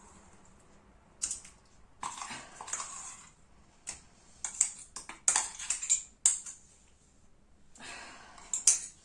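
Kitchen utensils clinking and scraping as ginger paste is emptied from a mixer jar into a kadhai: irregular knocks and scrapes, busiest in the middle and again near the end.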